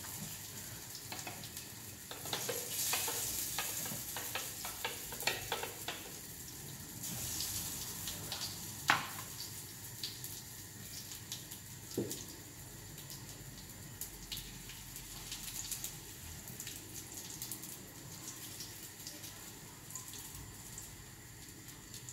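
Potato pancakes frying in sunflower oil in a frying pan, a steady sizzle, with scattered taps and knocks of a utensil against the pan; the sharpest knock comes about nine seconds in.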